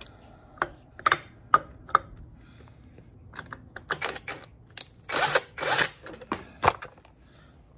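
Metal clicks and clinks of hand work on an engine: tools and fittings tapping against the manifold area as a bolt is fitted, in irregular single ticks, then two short rasping bursts a little past the middle, the loudest sounds, and one more click.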